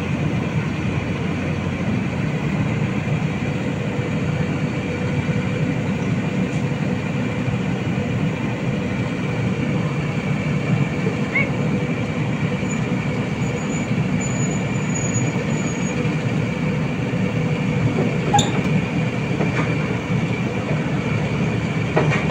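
SANY crawler crane's diesel engine running steadily at an even pace, a dense low rumble with a thin steady whine over it.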